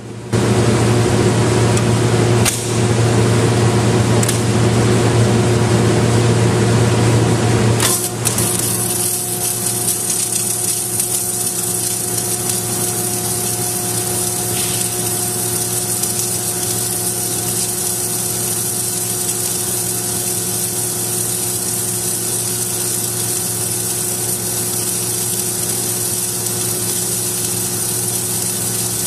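Submerged arc welding equipment running in a shop: a steady, loud hum with hiss. About eight seconds in, the deep hum drops away and a higher hiss takes over.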